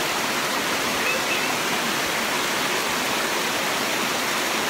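Steady, even rush of water falling down a 200-foot waterfall.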